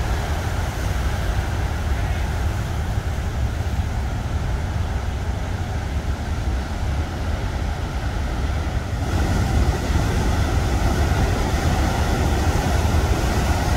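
Heavy ocean surf breaking and washing in over rocks: a steady roar with a deep rumble underneath, growing louder and brighter about nine seconds in.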